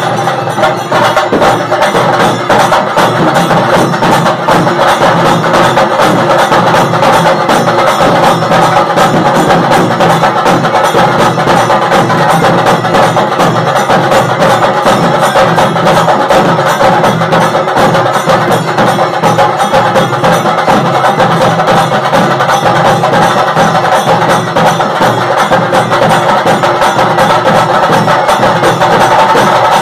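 Festival drum band playing large stick-beaten drums, rope-laced barrel drums and round frame drums, in a loud, fast, unbroken rhythm of dense strokes.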